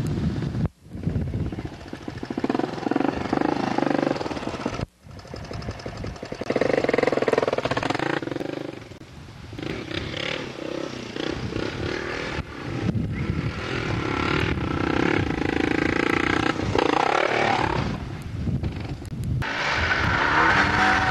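Small off-road buggy engine running and revving up and down as it is driven, cutting out abruptly twice in the first five seconds.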